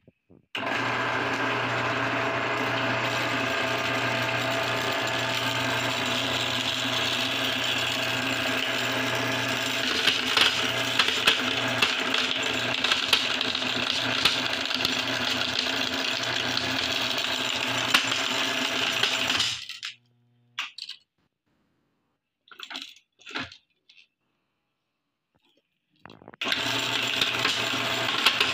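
Electric meat grinder running steadily, its motor hum mixed with the rattle and crack of glass marbles being crushed inside it. The motor stops about two-thirds of the way through, a few short clicks follow, and it starts running again near the end.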